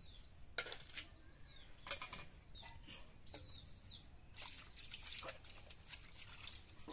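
Small river fish being washed by hand in shallow water on a wet concrete slab: scattered splashes and wet sloshing, the sharpest about two seconds in and another run of splashes a little before five seconds. Birds chirp faintly between.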